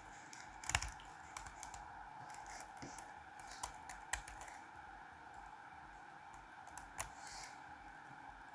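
Faint computer keyboard typing: a few irregularly spaced key taps.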